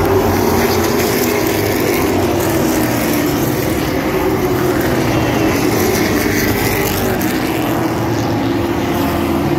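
A pack of Sportsman stock cars racing on an asphalt oval, their engines running loud and steady as they sweep through the turn.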